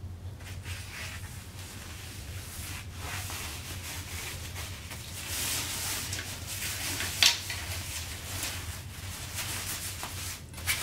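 Metal rod being worked through the fabric sleeve of a Graco Pack 'n Play changing pad: steady rubbing and rustling of fabric against the tube, with a sharp click about seven seconds in.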